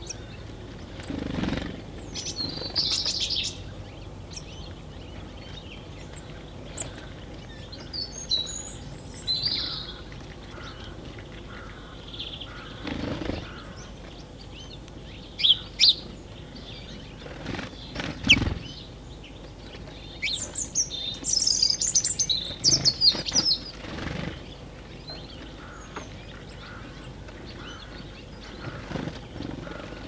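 Small garden birds at a feeder, tits and sparrows, chirping and twittering in scattered short bouts of high calls, busiest in the second half. Three soft low thumps come in between the calls.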